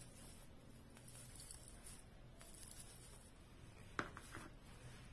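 Near silence with a faint steady low hum, and a single light click about four seconds in as plastic Christmas ornaments on an artificial wreath are handled.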